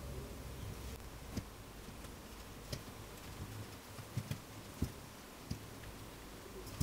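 Soft, irregular taps and clicks as handmade dumplings are set one by one onto the silicone liner of a bamboo steamer basket, about half a dozen light knocks.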